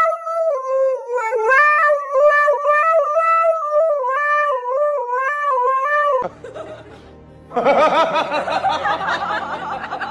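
A Siberian husky howls into a toy karaoke microphone: one long howl whose pitch wavers up and down. It breaks off about six seconds in. After a short quieter moment, a busier, noisier mixture of sound takes over.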